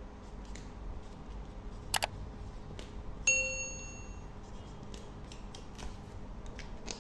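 Permanent marker scratching in short strokes as it writes on a plastic-wrapped parcel. About two seconds in there is a quick double click, and a little later a bell-like ding that rings and fades over about a second: the sound effect of a subscribe-button animation.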